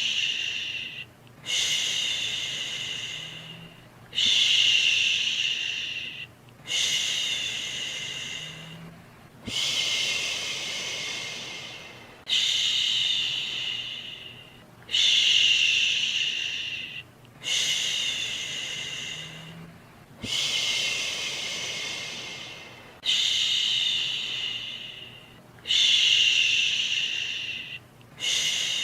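A soothing 'shhhh' shushing sound for lulling a baby to sleep, repeated about every two and a half seconds. Each shush starts sharply and fades away.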